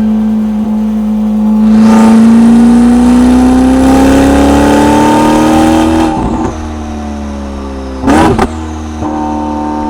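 Ferrari SF90 XX twin-turbo V8 running through a RYFT straight-piped titanium exhaust. It holds a steady drone, gets louder about two seconds in and climbs slowly in pitch, then eases off around six seconds and settles. A brief loud burst comes near eight seconds.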